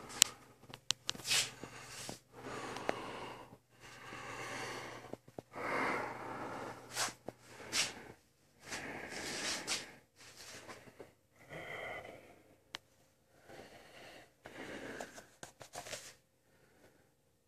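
A person breathing heavily and raspily through a latex skull mask: a dozen or so long, noisy breaths of about a second each with short pauses between them, and a few faint clicks.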